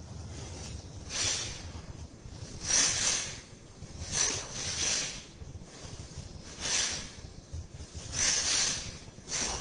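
Sharp hissing exhalations, one about every second and a half, in time with repeated overhead kettlebell snatches, over a low steady rumble.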